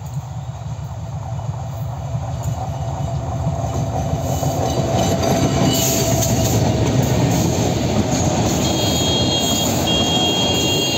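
An EMD GT38ACL diesel locomotive hauling a container freight train, its engine rumble growing louder over the first few seconds as it comes up and passes close by. The loaded container wagons then roll past steadily, and a thin high wheel squeal joins in near the end.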